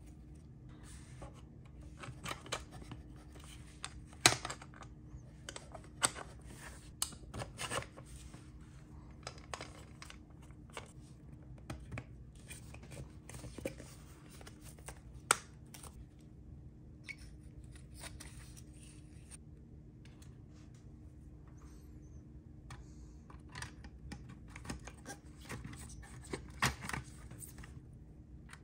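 Small diecast model parts handled and fitted together: a rubber tire worked onto a plastic wheel rim and wheels set onto the metal chassis, with quiet scraping and rubbing and several sharp clicks, the loudest about four and fifteen seconds in. A faint steady hum runs underneath.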